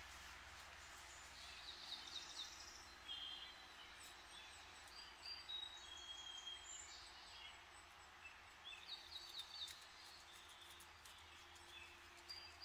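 Faint songs of several wild songbirds, short whistled notes and trills every few seconds, over a low steady hum of distant road traffic.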